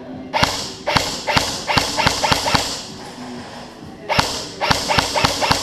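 Airsoft gun shots fired in quick single shots, about three or four a second, in two volleys with a pause of about a second and a half between them.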